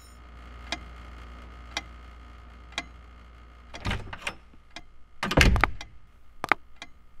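Wall clock ticking about once a second over a low steady hum, then louder knocks about four seconds in and a heavy thud a little later.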